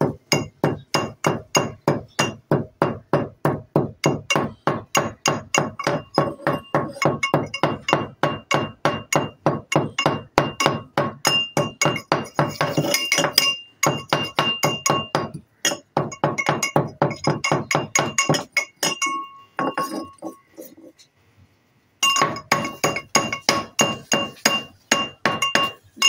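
Metal pestle pounding in a small metal mortar, about four strikes a second, each with a ringing clink, crushing roasted cumin, fennel and green cardamom. The pounding stops for a couple of seconds past the three-quarter mark, then starts again.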